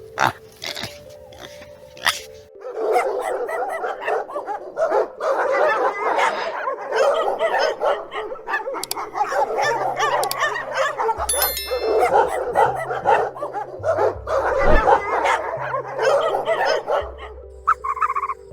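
Dogs barking and yelping in a dense, continuous stretch, starting about three seconds in and easing off near the end.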